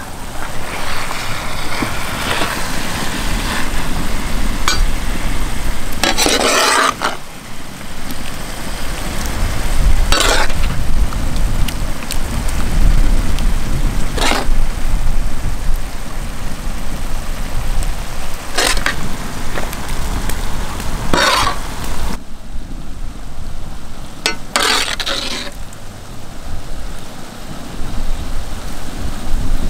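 Thick pepper-fry gravy bubbling and sizzling in a large metal pan, with a metal ladle scraping the pan and slopping gravy over a whole beef leg about six times, a few seconds apart. A steady low rumble sits underneath.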